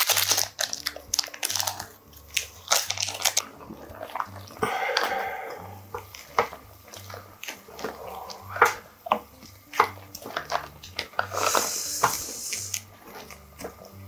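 Metal chopsticks knocking and scraping against the ingredients and pot of seafood ramen: many short irregular clicks and handling sounds, with a brief rushing hiss about eleven seconds in.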